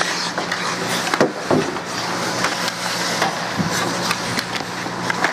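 Youth ice hockey play: skate blades scraping across the ice and sticks clacking, with several sharp knocks of stick on puck, over a steady hiss and a low hum.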